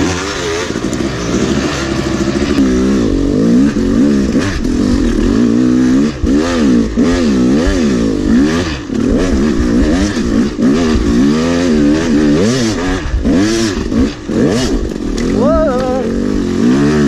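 Yamaha YZ250 two-stroke dirt bike engine revving up and down over and over, the throttle worked in short bursts as the bike claws up a steep hill.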